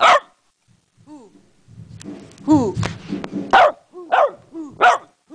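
Dogs barking in play: a short bark, a pause of about a second, then a run of short barks with brief high yelps between them.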